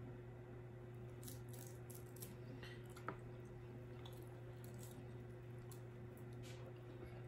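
Faint ticks and crackles of crab shell being picked apart by hand, with one sharper click about three seconds in, over a steady low hum.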